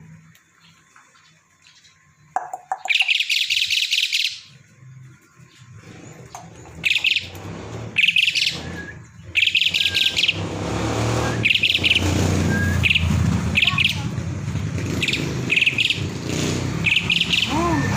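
Kingfisher giving rapid, trilled chattering calls in repeated bursts: one long burst a few seconds in, then shorter bursts about every second. A steady low rumble rises underneath from about halfway.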